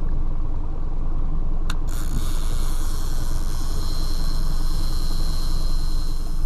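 Boat engine running steadily at slow trolling speed, throttled back just short of neutral, as a low rumble. A click comes about a second and a half in, and a steady high hiss joins just after.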